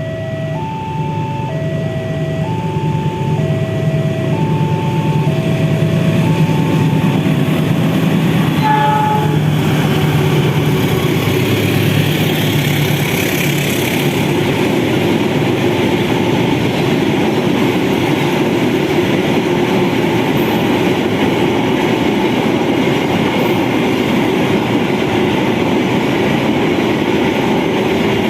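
Level-crossing warning alarm sounding its alternating two-note signal, about one note a second, as a diesel locomotive drones past. The alarm stops about eight seconds in, and the container train's wagons then rumble steadily over the crossing.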